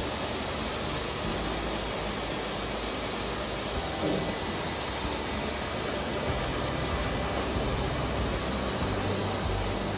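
High-velocity dog dryer blowing a steady rush of air from its hose nozzle.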